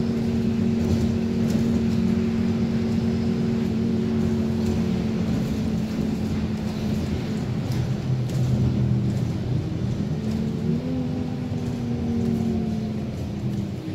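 City bus engine and drivetrain running while the bus drives, heard from inside the cabin as a steady hum over low rumble. About ten seconds in, the pitch shifts and rises briefly.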